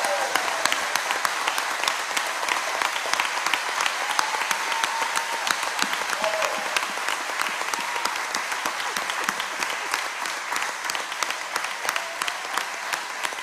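A congregation applauding: dense, steady clapping from many people that eases slightly near the end.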